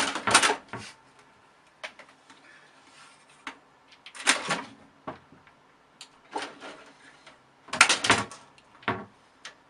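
Short clusters of knocks and clatters, about five bursts a second or two apart, with quiet between them.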